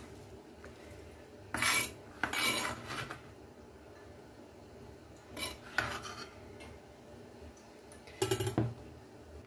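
Kitchen knife blade scraping diced onion across a cutting board to clear it off, in about five short scrapes with pauses between.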